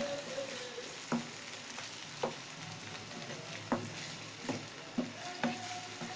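Mutton mince with onion, tomato and green chillies sizzling as it is stir-fried in oil in a non-stick pan, the spatula knocking against the pan about once a second as it stirs.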